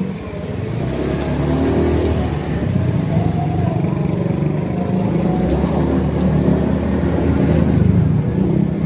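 A motor vehicle's engine running steadily, its pitch shifting a little now and then.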